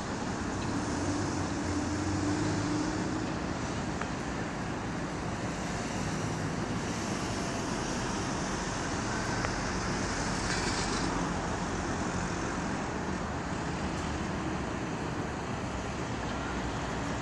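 Steady outdoor drone of road traffic and construction-site machinery, with no single event standing out. A faint engine-like hum comes through early on, and a brief hiss rises about two-thirds of the way through.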